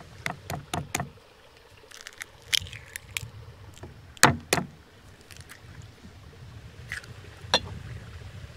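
Cooking utensils and dishes being handled: a run of irregular sharp clinks and knocks, the loudest pair of clacks a little past the middle, over a faint low rumble.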